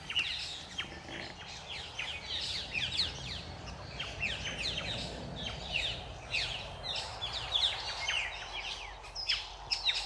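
A flock of figbirds calling: many short, falling chirps overlapping one another without a break.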